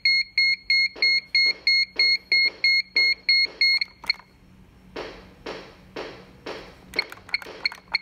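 Interlogix NX-8 alarm system sounding a fire alarm: rapid, high, evenly spaced beeping, about three a second, that stops about four seconds in when the code is keyed in. A lower pulsing sound carries on about twice a second, and a few short keypad key beeps come near the end as the panel is reset with star 7.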